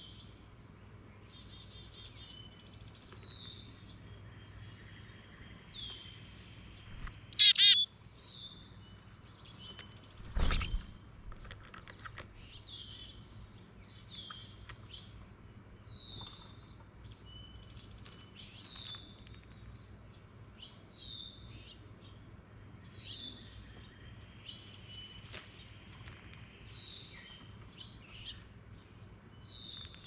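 Wild songbirds: one keeps repeating a short, high, down-slurred note every second or so, with fainter chirps around it. About seven seconds in comes a loud, brief, rattling burst, and about ten seconds in a sharp knock, like a bird landing or pecking on a feeder tray.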